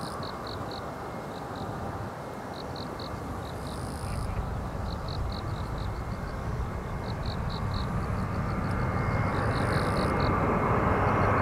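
Airbus A320-200 airliner on approach to land, its jet engine noise growing steadily louder as it closes in, with a faint high whine coming in over the last few seconds. Faint high chirps in short runs repeat in the background.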